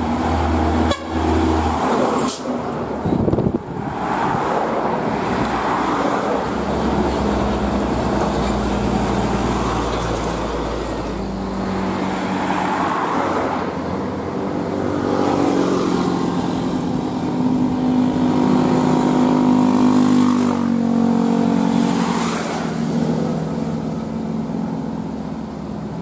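Heavy diesel trucks, a Hino 500 and then a UD Quester, driving past with engine drone and tyre noise, loudest about twenty seconds in as the second truck draws near.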